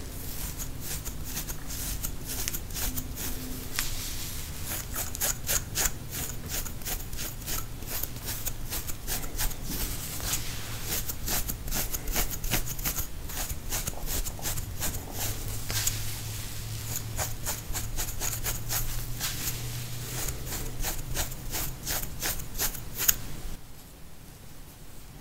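Close-up scratching of dandruff-flaked scalp skin: many quick, irregular dry scratching strokes as flakes from seborrheic dermatitis are scraped and lifted. The scratching stops shortly before the end.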